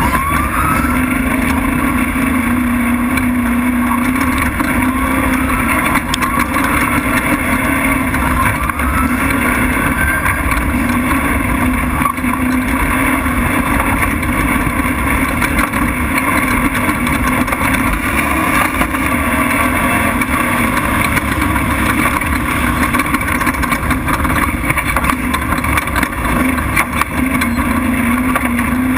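Off-road race truck's engine running hard at speed over a dirt track, under a steady rush of wind and road noise, heard from the hood. A few short rising whines come in the first ten seconds or so.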